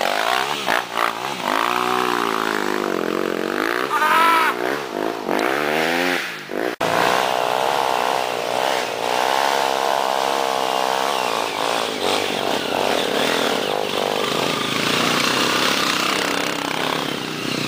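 Dirt bike engines revving hard up and down as the bikes climb a rutted, muddy trail. There is an abrupt break about seven seconds in, after which an engine runs at a steadier pitch.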